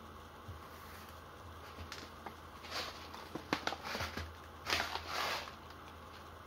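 Light handling sounds: a few small clicks and taps, followed by a plastic bag of airsoft BBs crinkling briefly as it is picked up about five seconds in.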